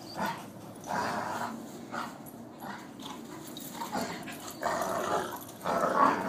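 Two dogs play-fighting, growling and snarling in short bursts, the loudest near the end.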